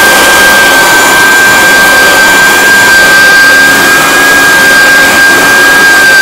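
Electric hardwood floor edger, a Clarke machine, running and sanding wood: its motor-cooling fan and dust-vacuum fan make a loud, steady noise with a constant high whine, over the grinding of the sanding disc on the boards.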